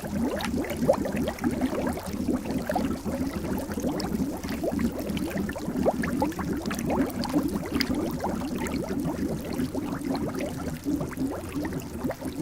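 Water bubbling continuously: a dense, unbroken stream of small bubbles, each giving a short rising blip.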